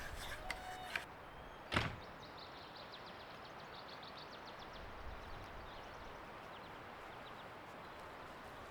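Steady rushing wind noise, with one sharp knock about two seconds in and a few light clicks just before it. Faint rapid high ticks run through the middle of the wind.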